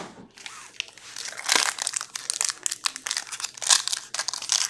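A Skybox Metal Universe hockey card pack's shiny wrapper crinkling and tearing as it is ripped open by hand. The crackling is sparse at first and comes thick and louder from about a second and a half in.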